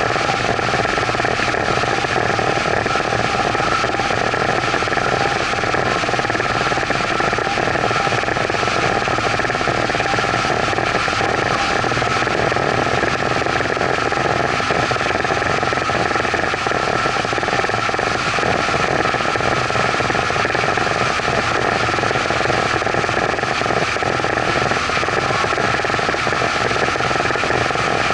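Evinrude outboard motor running steadily at speed while towing a kneeboarder, mixed with the rush of water churned up in the boat's wake.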